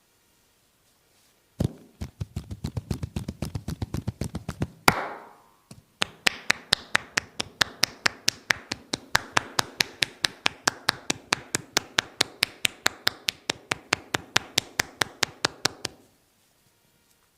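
A masseur's hands striking a person's back in rapid percussive massage strokes, about six sharp slaps a second. One run stops with a single louder strike about five seconds in, and after a short pause a second, longer run goes on for about ten seconds, then stops suddenly.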